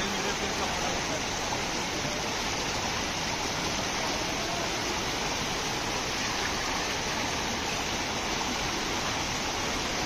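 Steady rush of water from the Chaparai waterfall and its stream, an even, unbroken wash of sound.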